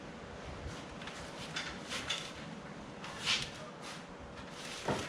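Handling noises from unpacking a wooden shipping crate: scattered scrapes and rustles, with a knock near the end.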